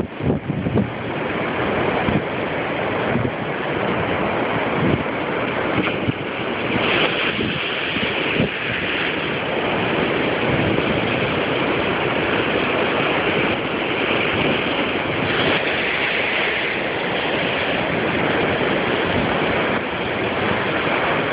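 Heavy storm surf crashing against rocky cliffs: a steady, loud roar of breaking and churning water, with wind buffeting the microphone in the first second or so.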